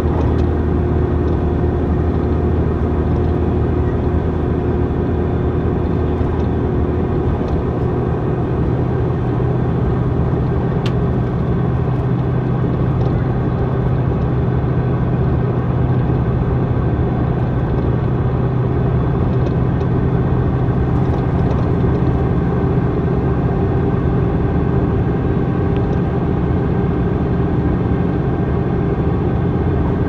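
Iveco MidiRider bus's Iveco Tector 6 diesel engine running under a ZF automatic gearbox, a steady drone whose pitch steps up about eight seconds in and then holds. The recordist judges the bus's ZF gearbox unhealthy-sounding, with a metal rattle.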